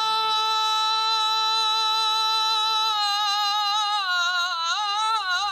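A man's high voice singing unaccompanied in Iraqi tarab style: one long note held steady for about three seconds, then breaking into a wavering, ornamented run.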